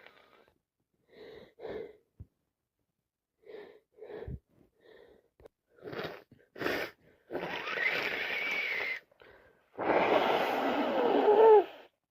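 A person sniffing and drawing short breaths several times, then blowing her nose hard twice, each blow lasting nearly two seconds. The second blow is the louder, with a whistling squeal that glides up and down through it.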